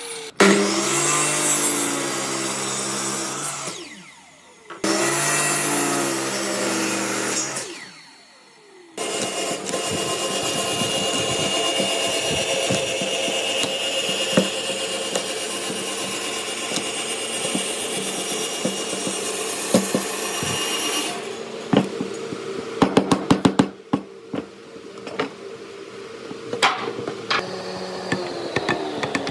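Woodworking power tool running: two short runs of a few seconds each with a steady hum, then a longer steady whirring run of about twelve seconds. Near the end come a series of sharp taps and knocks.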